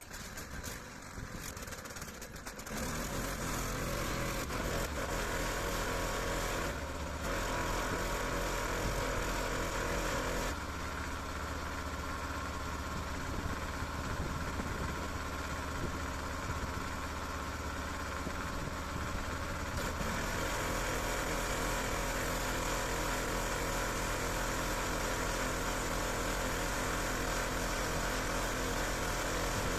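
Pressure washer running steadily, with the hiss of its water jet over the motor's hum; it comes up to full noise about two to three seconds in.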